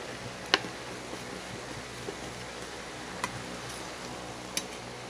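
Metal spoon stirring noodles in broth in a stainless steel pot, knocking against the pot a few times in sharp clicks, the loudest about half a second in, over a steady background hiss.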